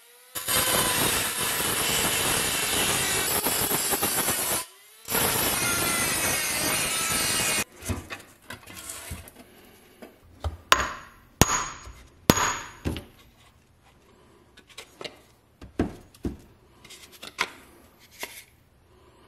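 Rotary tool with a small grinding stone grinding rust off the pressed steel of a vintage Tonka dump truck body: a loud, steady whine that cuts out briefly twice and spins back up. After about eight seconds it stops, and scattered knocks and sharp metallic clinks follow as the rusty steel parts are handled, several with a brief ring.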